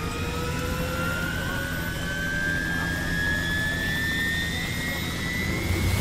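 Helicopter turbine engine spooling up on start-up: a whine that rises steadily in pitch over a low rumble.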